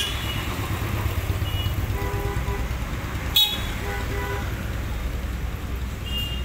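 Steady low rumble of road traffic, with a brief faint tone about two seconds in. About three and a half seconds in there is a single sharp click of the T-handle wrench on the motorcycle's clutch pressure-plate bolts.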